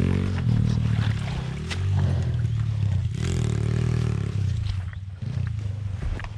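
Pit bike's single-cylinder four-stroke 140 cc engine running at low revs, its pitch rising and falling a little, with a few clicks and knocks over it.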